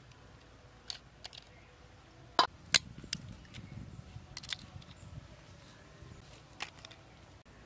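Scattered sharp clicks and snaps from raw crabs being broken apart and cleaned by hand over a metal bowl, the two loudest coming close together about two and a half seconds in.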